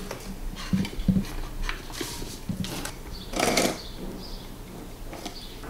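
Small objects being handled on a desk: scattered light clicks and knocks, two sharper ones about a second in, and a short scrape or rustle about halfway through.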